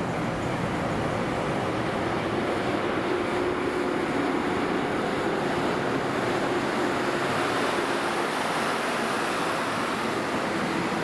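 ChS2T electric locomotive pulling slowly past on departure with its train: a steady rushing noise with a low steady hum.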